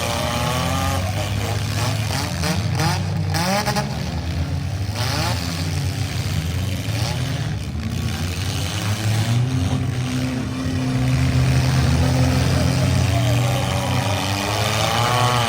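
Several demolition derby cars' engines running and revving at once, with a few sharp bangs in the middle of the stretch.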